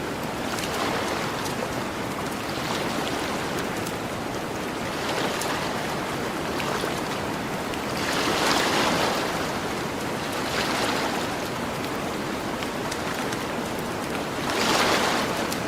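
Gentle ocean waves washing onto a beach, a steady hiss of surf with waves swelling louder several times, most strongly about halfway through and near the end. Faint crackling of a campfire runs throughout.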